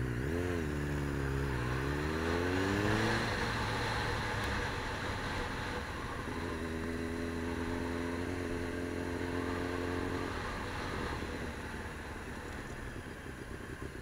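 Motor vehicle engine running, its pitch rising as it speeds up in the first few seconds. It then holds a steady note for a few seconds, over a constant low drone.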